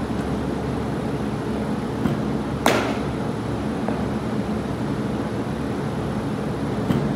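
A steady mechanical hum, with a sharp crack of a baseball being struck about two and a half seconds in and a fainter knock near the end.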